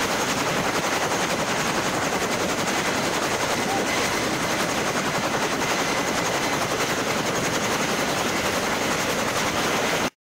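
Helicopter running steadily and loud, a dense rapid chop of rotor noise with a thin high whine over it; it cuts off suddenly near the end.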